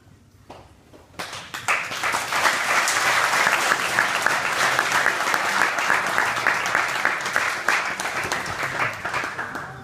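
Small audience clapping: the applause starts about a second in, quickly builds to a steady level and fades near the end.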